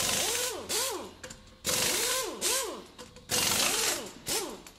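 Logo-reveal sound effect: noisy, machine-like whooshes in three pairs, each with a tone that swoops up and back down.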